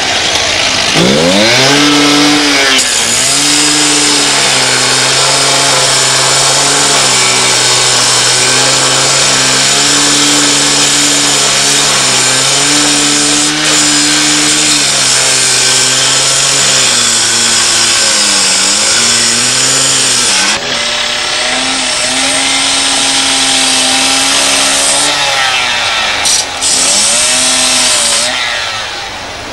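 Handheld two-stroke petrol cut-off saw grinding through steel with an abrasive disc, a high hiss over the engine note. The engine revs up about a second in, then sags and climbs again several times as the disc is pressed into the cut and eased off. It fades near the end.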